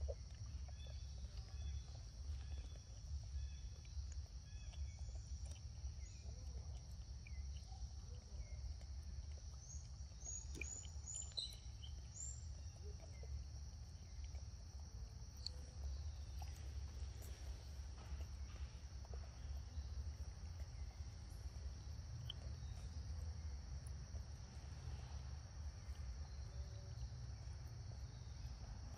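Forest ambience: a steady, high insect drone with a few short bird chirps about ten to twelve seconds in, over a steady low rumble.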